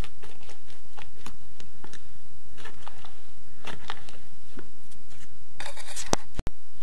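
Thick block-laying adhesive being stirred by hand with a paddle mixer in a plastic bucket: irregular wet squelches and scrapes, with no drill motor running.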